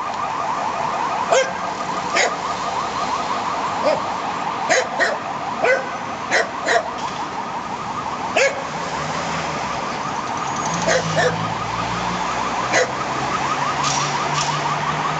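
Ambulance siren in a fast yelp, rapid rising sweeps several times a second. A dog barks over it in short single and double barks, which are the loudest sounds.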